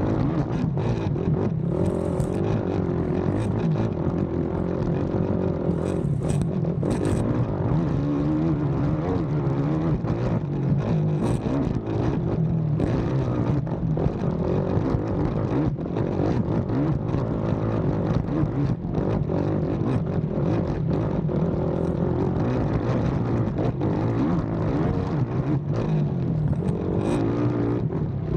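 A race ATV's engine revving hard, its pitch rising and falling as it accelerates and backs off over a rough cross-country track, with frequent short knocks and clatter.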